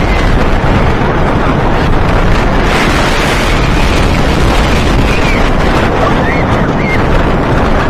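Wind rushing over the microphone together with a wooden roller coaster train running fast over its wooden track, loud and steady. A few faint, short high squeals sound in the second half.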